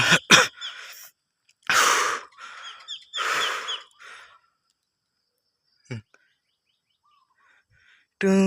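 Faint high bird chirps against three short breathy hisses close to the microphone, and a single sharp click about six seconds in.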